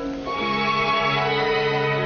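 Orchestral music with held string chords, moving to a new chord about a third of a second in.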